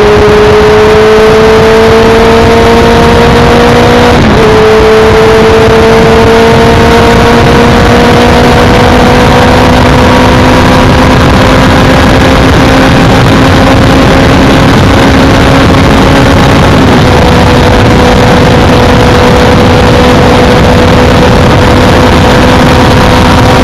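Benelli TNT600's inline-four engine pulling steadily at highway speed, its pitch slowly climbing, with two upshifts about four and seventeen seconds in, each dropping the pitch a little. A constant rush of wind and road noise runs underneath.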